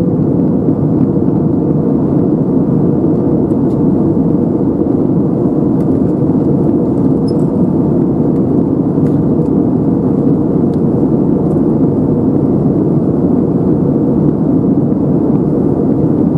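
Steady cabin roar of an Airbus A321neo in flight: its Pratt & Whitney PW1100G geared turbofan engines and the rush of air past the fuselage, heard from inside the cabin over the wing.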